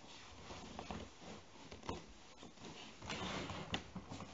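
Rustling and light knocks of things being handled and shifted about on a wooden floor, with a couple of sharp clicks.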